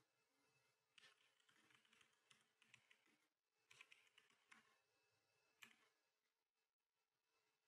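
Faint typing on a computer keyboard: keystrokes in several quick clusters, stopping about six seconds in.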